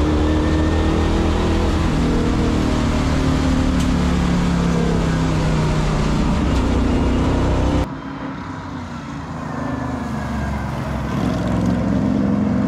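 A 1981 Fox Body Mustang road-race car's engine running hard on track, heard from inside the cabin. About eight seconds in, the sound cuts to a quieter view from outside the car, and the engine note climbs again near the end.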